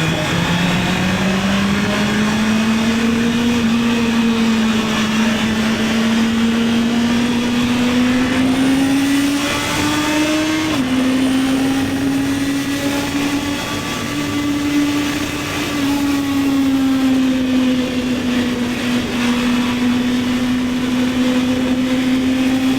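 Honda CB650R's inline-four engine pulling under acceleration, its note climbing steadily for about ten seconds. The pitch then drops suddenly on an upshift about halfway through, and the engine holds a fairly steady cruise with a small dip later on. Wind and road noise hiss on the action camera's built-in microphone.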